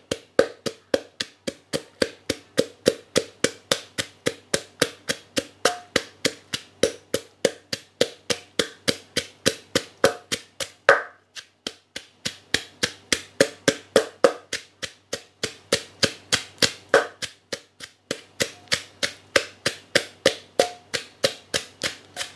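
Pestle pounding chillies in a mortar for som tam, with steady knocks about three to four a second and a couple of brief pauses.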